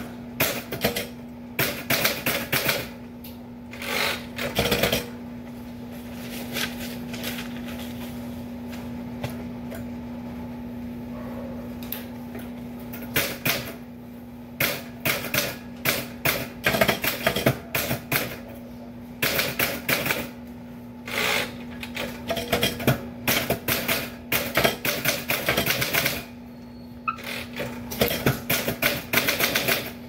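Typewriter keys striking in quick bursts of typing, with a lull of several seconds in the first half where only a few strikes fall. A steady low hum runs underneath.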